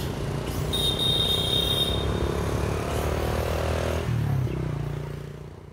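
A motor vehicle engine running steadily, its low drone shifting pitch about four seconds in, with a brief high steady tone about a second in; the sound fades out near the end.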